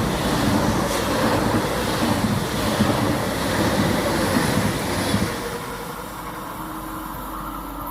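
ICE high-speed train passing through at speed: a loud rush of wheel and air noise for about five seconds, then the sound drops off quickly to a quieter steady rumble as the train moves away.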